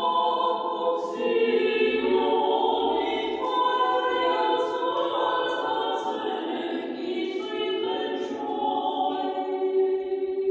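Armenian vocal choir singing a cappella, several voices holding long notes together and moving slowly from chord to chord, with brief sung consonants now and then.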